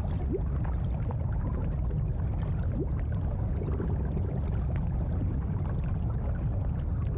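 Steady rush of running water from a pool's waterfalls, even and unbroken, with a constant low rumble beneath it.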